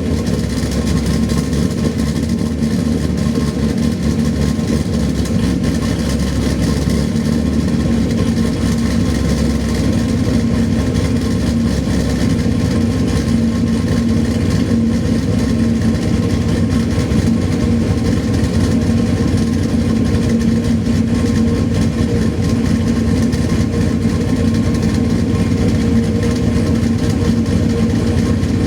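Corvette 427-cubic-inch V8 idling steadily, on new spark plugs, ignition wires and coils, with the leaking cat-back exhaust gaskets replaced.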